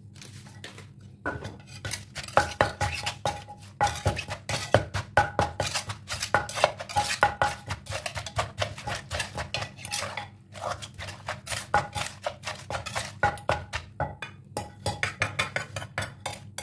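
A pestle pounds rapidly and steadily in a mortar, mixing long beans, chilies, lime and seasoning into a pounded salad. A metal spoon clinks against the bowl between strokes. The pounding starts about a second in.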